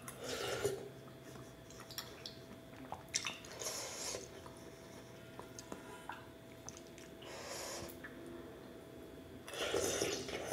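Eating of spicy Korean cold chewy noodles (jjolmyeon): chewing, with four short noisy mouthfuls taken about every three seconds and small clicks of cutlery on the plate between them.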